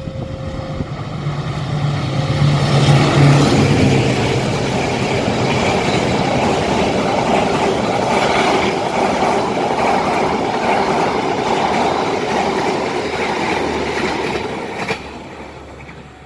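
A train passing close by at speed. A low engine drone comes first, then the loud rush and clatter of the carriages' wheels over the rails for about twelve seconds. The noise fades away near the end.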